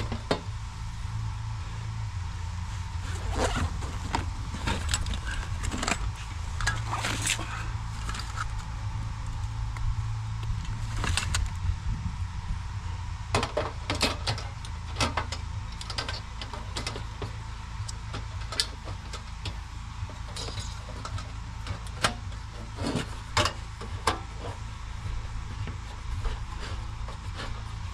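Metal cookware and utensils being handled as breakfast is set up: irregular clinks and knocks, a few sharper ones about 22 to 24 seconds in, over a steady low hum.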